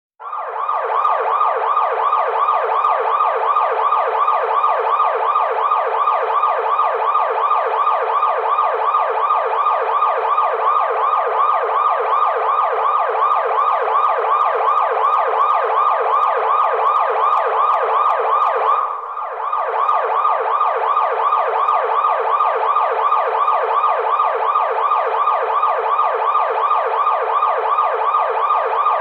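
A car alarm going off: a loud electronic siren tone warbling fast and evenly, with a brief dip about two-thirds of the way through.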